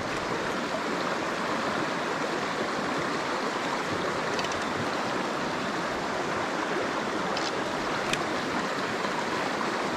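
Mountain stream flowing, a steady continuous rush of water, with a few faint clicks.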